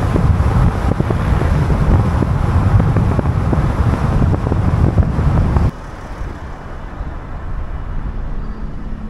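Loud low rumble of road traffic with wind buffeting the microphone. It cuts off abruptly about six seconds in, leaving a quieter steady background.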